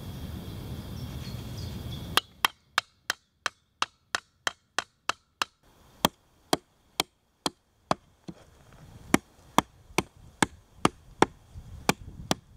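Hatchet chopping a notch into a freshly debarked log, a series of sharp wooden chops starting about two seconds in. They come quickly, about three a second, then after a short pause slow to about two a second.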